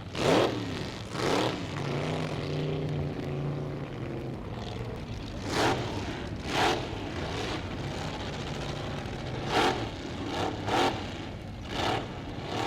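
Drag-racing engines, among them a supercharged Chevrolet V8, being blipped repeatedly at the starting line: about ten sharp throttle punches, each rising and falling quickly, with a short steady idle two to four seconds in.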